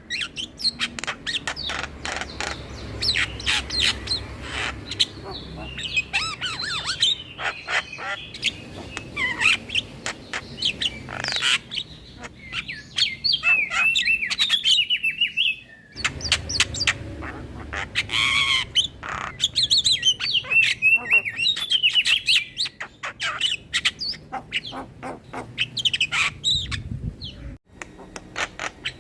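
Javan myna (jalak kebo) singing a fast chattering song: harsh clicks and squawks mixed with short whistled notes, broken by a brief pause about sixteen seconds in.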